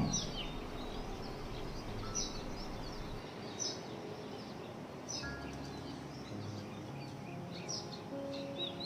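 Birds chirping: scattered short, high calls every second or so over a steady background hiss.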